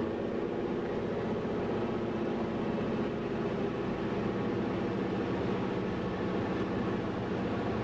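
Aircraft engine droning steadily, heard from inside the cockpit, with an even hum of several steady tones over a rushing noise.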